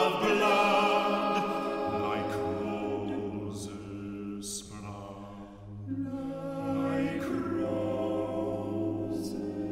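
Unaccompanied male vocal ensemble singing slow, sustained chords in close harmony. A low bass note joins about two seconds in, and the voices move to a new chord after a brief softening about six seconds in.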